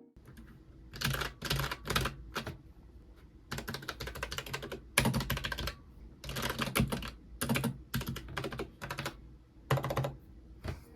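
Cheap mechanical keyboard being typed on: quick runs of key clicks in short bursts, each a second or less, with brief pauses between.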